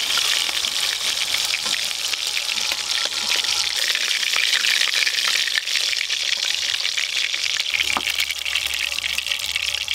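Hilsa fish steaks frying in hot oil in a metal wok, a steady sizzle, with light clicks and scrapes of a metal spatula against the pan as the fried pieces are lifted out.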